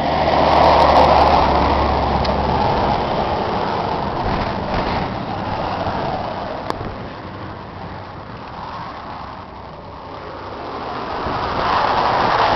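Wind buffeting the microphone in gusts. The gusts are strongest at the start and again near the end, with a lull in between. A steady low hum can be heard under them for the first couple of seconds.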